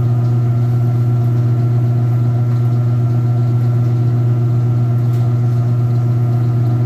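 Washing machine running with a loud, steady hum, its drum spinning at a constant speed while the cabinet stays still.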